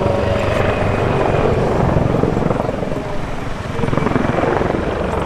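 Light helicopter flying a display pass overhead: the steady beat of its rotor and the whine of its engine, dipping briefly about three and a half seconds in before coming back.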